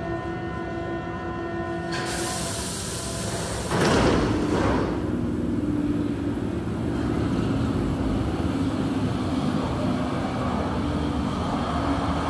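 Berlin U-Bahn train pulling out of an underground station. A steady hum of several pitches gives way to a hiss about two seconds in, and a loud rush about four seconds in, followed by the ongoing rumble and hum of the train pulling away.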